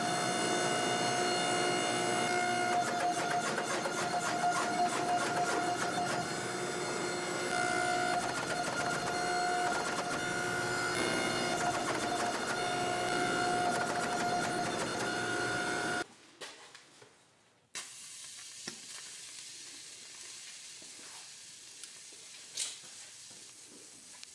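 Hydraulic forging press running as it squeezes a forge-hot steel canister billet flat: a steady pump whine with overtones over a hiss and crackle. About two-thirds of the way through it cuts off abruptly, leaving a quiet background with a few light clicks.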